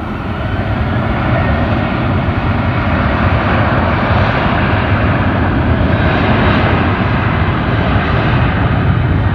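Jet airliner's engines at takeoff power, a dense roar with a strong low rumble. It grows louder over the first few seconds as the aircraft rolls down the runway, then holds steady and loud.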